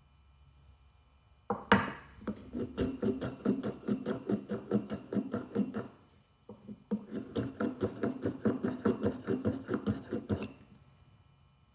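Japanese hand plane taking quick, short strokes along an oak edge, about four a second, with a brief pause midway. The blade is only taking light cuts because it is not quite sharp.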